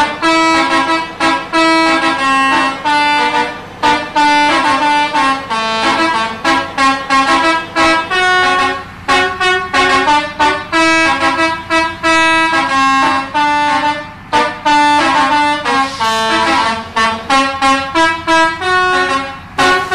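Indonesian 'telolet' bus horn, a set of tuned horns playing a fast melody of short stepped notes, several sounding together, with a few brief breaks.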